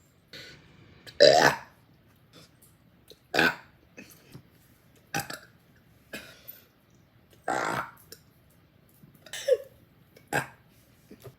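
A woman burping over and over: a series of short burps about one every second or two, the loudest about a second in.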